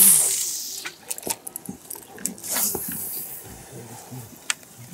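Cast with a spinning rod: a swish with line hissing off the reel, fading over about half a second. A second short rush of noise follows about two and a half seconds in, then scattered small clicks.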